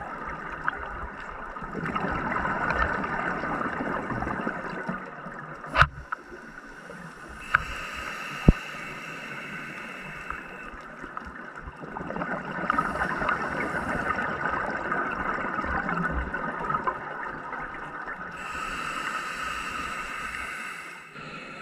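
Muffled underwater noise heard through a camera housing, swelling and fading in slow cycles with a faint hiss in some stretches, and a few sharp clicks about six and eight and a half seconds in.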